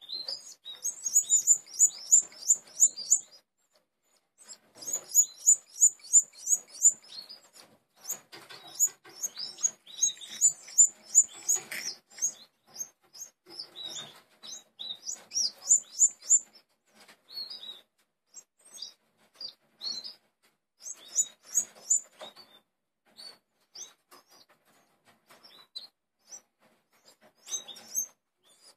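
Nestling birds begging while being hand-fed from a syringe: bursts of rapid, high-pitched chirps, about four a second, broken by short pauses, with faint rustling from the handling.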